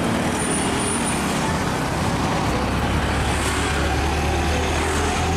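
Isuzu car-carrier truck driving past on the road, with its engine running and steady engine and road noise.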